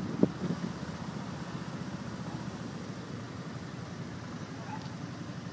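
Motor vehicle engine running steadily at low speed, a low hum, with a brief thump just after the start.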